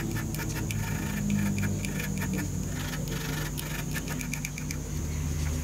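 Small hand file scraping in many quick strokes across the edge of a die-cast aluminium model-engine crankcase, taking off a nick in the casting. Under it runs a steady low hum.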